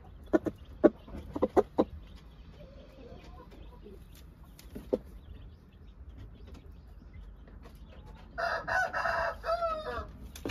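Shamo rooster crowing once near the end, a loud call of about two seconds that breaks into a wavering tail. Early on, a quick run of sharp taps from its beak pecking at the gravel floor.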